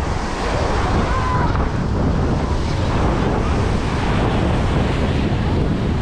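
Wind noise on the microphone over the steady wash of sea surf.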